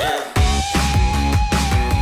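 Background music: after a brief drop, a heavy track comes in about a third of a second in, with a steady pounding beat and one long held lead note.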